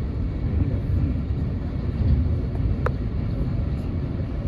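Steady low rumble of a moving train, with one sharp click a little before three seconds in.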